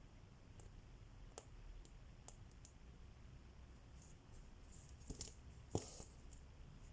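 Faint, sparse clicks of a needle poking through stretched cross-stitch fabric. A little before six seconds in comes a sharper click and a brief scratchy rasp, as the thread is drawn through the cloth.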